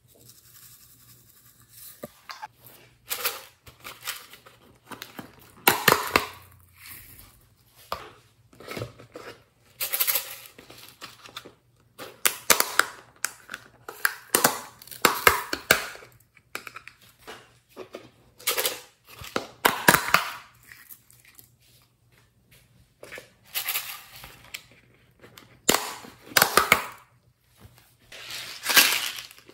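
Small plastic containers of sequins and glitter being shaken and tapped out over a glass tray, the loose pieces rattling inside and spilling out, with sharp plastic clicks and snaps from handling the containers. It comes in short bursts every second or two.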